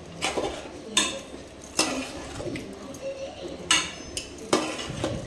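Metal spatula scraping and knocking against an aluminium cooking pot while stirring chicken pieces in curd, with several sharper clanks at irregular intervals.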